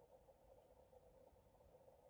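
Near silence: a faint, steady background hiss with no distinct sound events.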